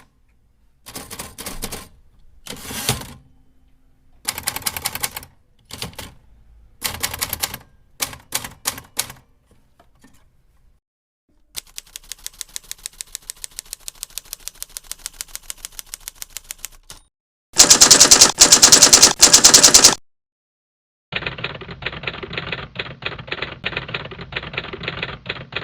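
Manual typewriter keys clacking in bursts with short pauses, then an even run of fast keystrokes, a much louder dense burst of typing, and finally a duller, thinner recording of rapid typing near the end: several separate typing sound-effect clips one after another.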